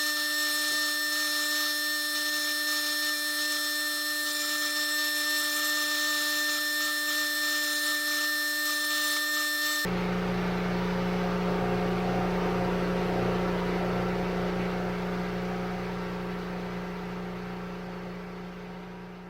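Power tool grinding down an aluminum bronze casting: a steady high-pitched whine with hiss. About halfway through it cuts abruptly to a lower, steady hum that fades away toward the end.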